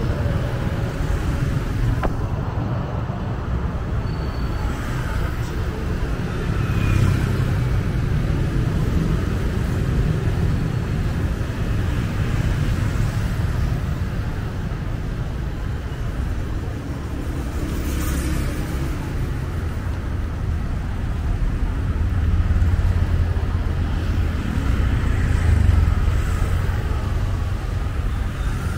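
City street traffic of motorbikes and cars passing, a steady low rumble. It swells about seven seconds in and again near the end as vehicles pass close.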